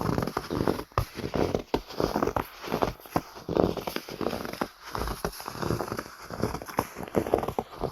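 Footsteps crunching through snow at a steady walking pace, each step a short, gritty crunch.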